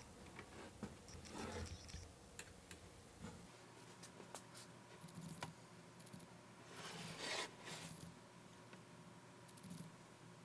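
Faint clicks, scratches and rubbing from hands working on a toy dial typewriter, with a louder scraping stroke about seven seconds in.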